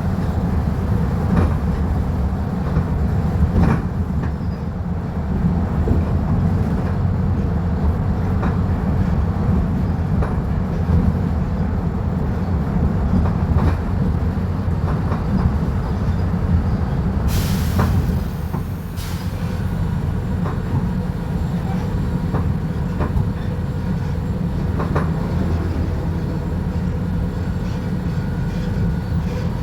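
Volvo B290RLE bus's diesel engine running under way, with a steady low rumble and scattered rattles and clicks. Two short hisses come about two-thirds of the way through.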